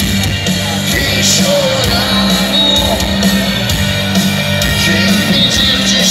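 Live rock band playing through a PA system, with a man singing the lead over electric guitar, bass and keyboards.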